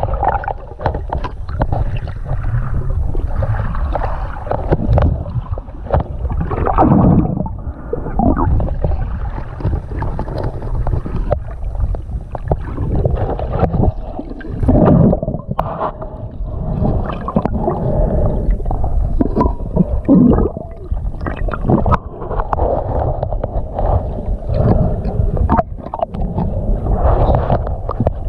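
Muffled underwater water noise from a snorkeler's camera: sloshing and gurgling that swell and fade every second or two.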